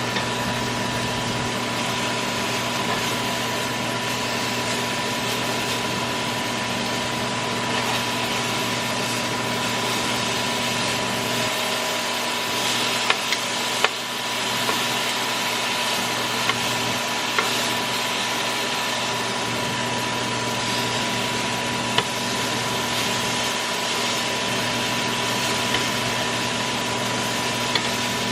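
Kitchen exhaust fan running with a steady hum, over a sizzling hiss from chicken frying in a pan, with a few sharp clicks scattered through.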